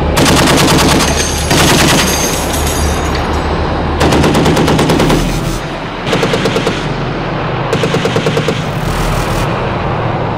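Belt-fed machine gun mounted on a Boxer armoured vehicle firing bursts of rapid fire: three long bursts in the first half, then three shorter ones.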